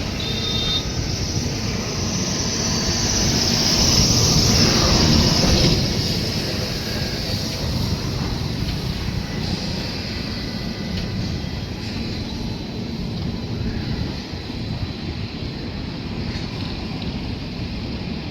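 A train running, with a steady rumble and rushing noise that swells louder about four to six seconds in. A brief high tone sounds about half a second in.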